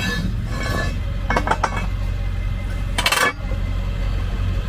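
Steel wheel-lift arm being pushed along the tow truck's wheel-lift crossbar and clanking into place. Several metal clinks and scrapes, with the loudest clank about three seconds in.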